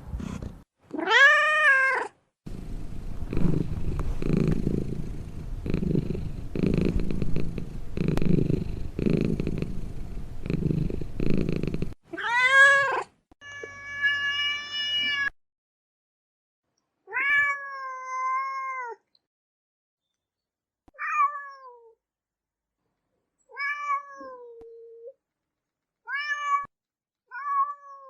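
Domestic cats meowing in a string of separate recordings: a rising-and-falling meow, then a long low rumbling noisy stretch, then a meow, a long steady high-pitched call and several shorter meows with silent gaps between them.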